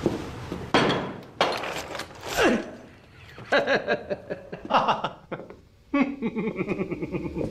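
A few knocks and rustles of movement around a table, then a man laughing heartily in short bursts.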